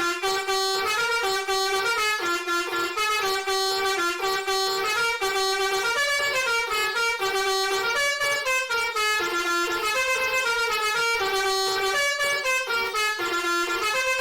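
Basuri telolet v3 multi-tone bus air horn playing a quick tune, a run of short stepping notes, two or three a second, without a break.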